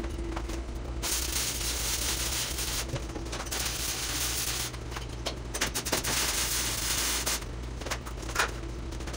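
Stick-welding arc with E6011 rods crackling in runs of a second or two with short breaks between, over a steady low hum.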